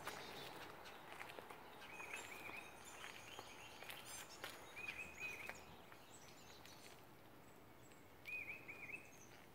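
A bird calling faintly, three short runs of quick repeated chirps a few seconds apart, over quiet outdoor background noise.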